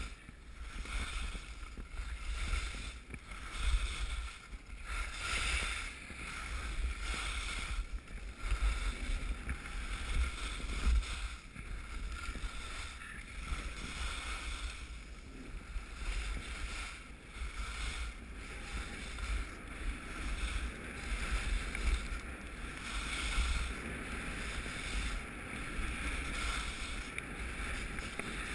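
Wind rushing over a POV camera's microphone during a fast ski descent, with a low rumble and the hiss of skis running over groomed snow. The noise swells and eases every second or so, in time with the turns.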